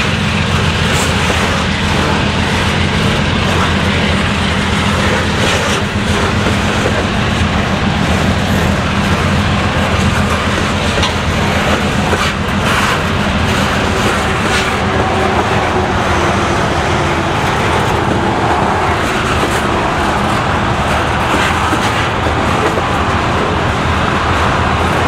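Freight cars of a mixed train rolling past close by: a steady rumble and rattle of steel wheels on the rails, with a few sharp clicks. The passing cars are boxcars, lumber-loaded centerbeam flatcars and covered hoppers.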